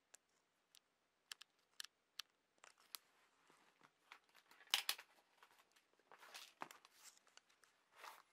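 Faint handling noise of a camera being adjusted by hand: scattered sharp clicks, then short bursts of rustling and scraping, the loudest about five seconds in.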